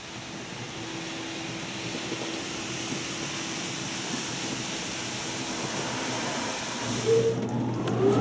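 Water spraying onto a car in an automatic car wash, heard from inside the cabin as a steady hiss that slowly grows louder. Near the end, a low steady hum comes in and the sound gets louder still.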